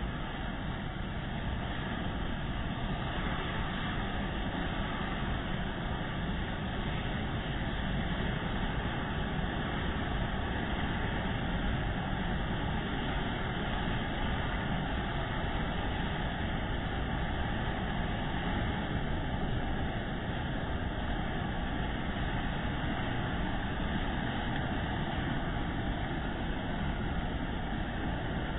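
A steady rushing noise that does not change.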